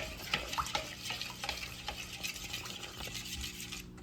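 Spoon stirring a thick cornstarch-and-water slime in a bowl: wet scraping with small clicks of the spoon against the bowl, stopping just before the end.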